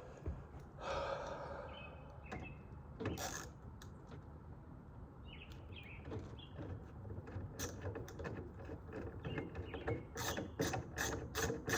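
Ratcheting hand tool clicking, with scattered knocks of hand work on a sliding-door lock; the clicks turn into a steady, louder run of about three a second near the end.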